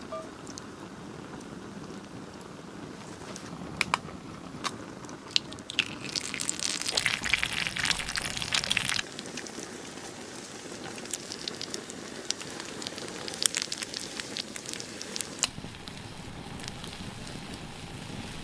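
Open campfire of split wood burning, a steady hiss with scattered sharp crackles and pops. For about three seconds near the middle, a louder sizzling crackle from an egg frying in the hot pan over the flames, which cuts off suddenly.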